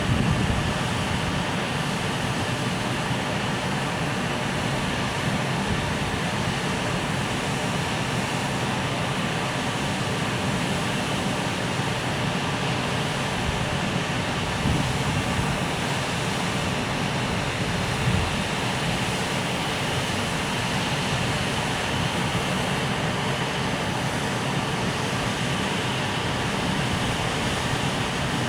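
Freight train moving slowly on the rails, a steady rumble with two single knocks about halfway through.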